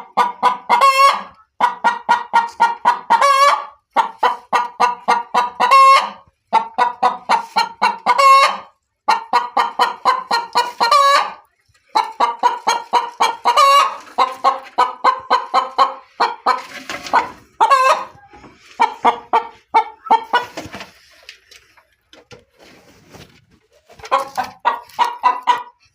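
A pet bird calling agitatedly: runs of rapid clucking notes, about four a second, each run ending in a longer, drawn-out squawk, repeated over and over. The calls thin out about two-thirds of the way through, then return in a last run near the end.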